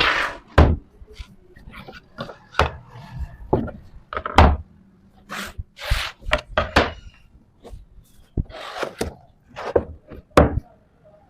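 Wooden pieces being handled in a woodshop: irregular sharp knocks and taps of wood on wood mixed with short scraping rubs, about a dozen over several seconds.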